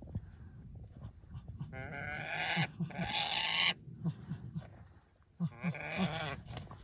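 Bird calls: three long wavering cries of about a second each, two back to back in the middle and one near the end, from the falcon or the ducks it is standing on.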